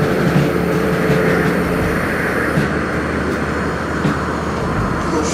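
Peterbilt semi truck's diesel engine idling, a steady low rumble with a broad hiss over it.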